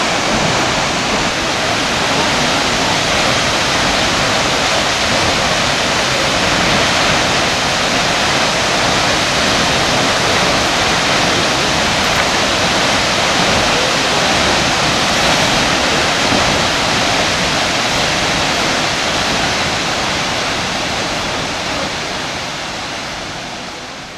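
Akaka Falls, a tall waterfall, plunging into its pool: a steady, full rushing roar of falling water that fades out near the end.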